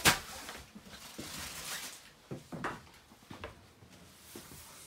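A wooden vanity cabinet door clicks shut right at the start. Faint scattered knocks and light rustling of footsteps and handling follow as someone moves through the small trailer interior.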